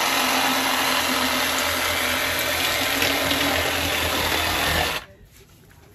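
Cordless handheld garden saw running steadily with a motor hum as it is pushed into a bluefin tuna to cut it; it stops abruptly about five seconds in.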